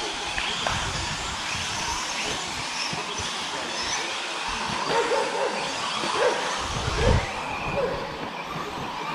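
A pack of 1/10-scale electric RC stadium trucks and truggies racing on a dirt track just after the start: a steady mix of electric motor whine and tyre noise. Several short, louder calls stand out over it in the second half.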